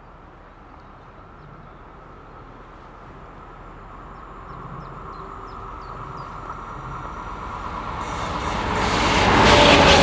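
Voith Maxima diesel-hydraulic locomotive running light toward the listener, growing steadily louder. It passes close near the end with a rush of engine and wheel noise, and its engine note drops in pitch as it goes by.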